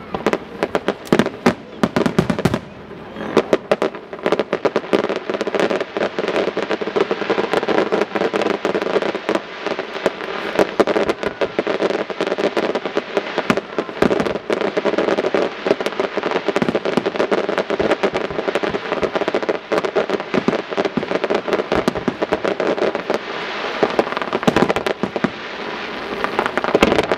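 Fireworks display: a dense, continuous run of sharp bangs and crackling from aerial shells bursting, with brief lulls about two seconds in and near the end.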